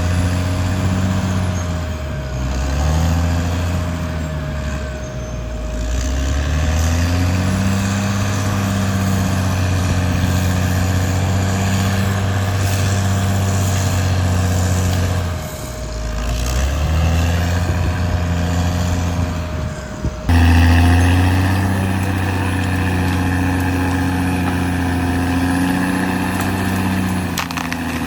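Caterpillar D6R XL bulldozer's diesel engine working under load, its pitch sagging and recovering several times as the machine pushes soil, with a faint steady whine alongside. The sound changes abruptly about two-thirds of the way through, and after that the engine runs at a steady speed.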